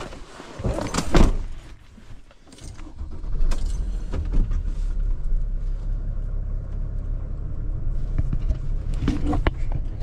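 A Mercedes van's door is pulled shut with a loud thud about a second in. About three seconds in the engine starts and then idles with a steady low rumble, with a few light clicks from keys and the cab.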